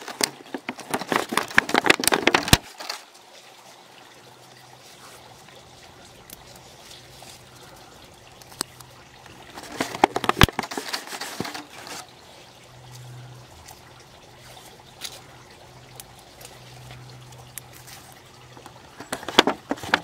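Crackling and rustling of a thin clear plastic plant saucer as black electrical tape is wrapped over its seam, in three short bursts: at the start, about halfway and near the end. A faint steady low hum sits under the quieter stretches between.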